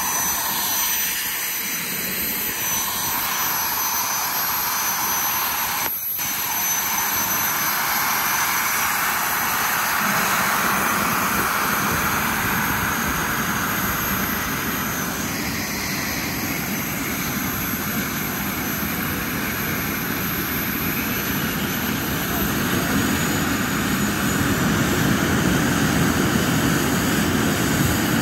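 Steady rushing vehicle noise, engine rumble under wind and road noise, growing a little louder near the end.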